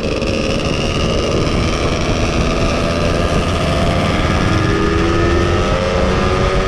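Yamaha F1ZR two-stroke engine running on the road, its pitch climbing slowly as the bike gathers speed in a low gear, with heavy wind rumble on the microphone.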